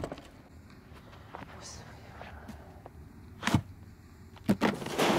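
Quiet library room tone with a few knocks of books being handled on wooden shelves. There is a sharp thud about three and a half seconds in, and a louder clattering crash near the end.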